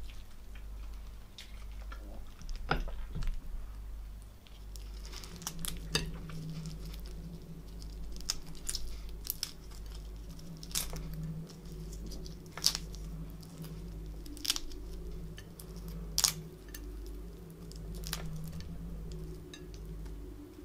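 Boiled prawn shells being peeled by fingers: sharp crackles and snaps of shell with soft tearing, one every second or two, over a low steady hum.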